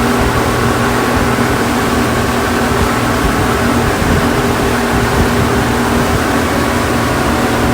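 Motorboat engine running steadily under way, a constant hum under a rushing noise of wind and water.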